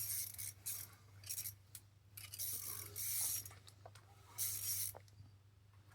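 Six short bursts of hissy rustling and scraping, irregularly spaced, over a low steady hum.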